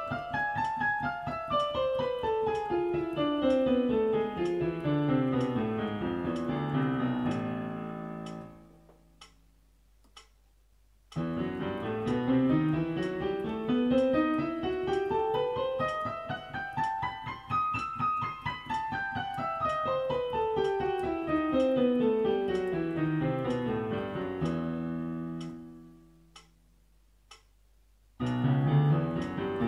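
Piano played hands together, running a scale down to a held final note that fades about eight seconds in. After a pause of a few seconds with a faint tick, another scale climbs several octaves and comes back down, and a third begins to climb near the end.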